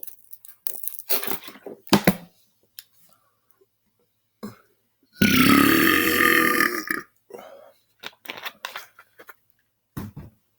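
A man's deliberate belch, long and loud, lasting nearly two seconds about five seconds in, with a few short mouth noises before and after it.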